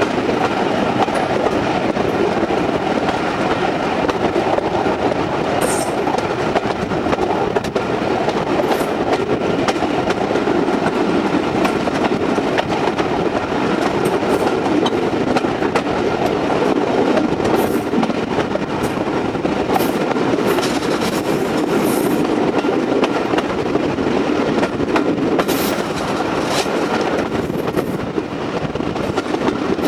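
Train running along the track: a steady rumble of wheels on rail, with scattered sharp clicks.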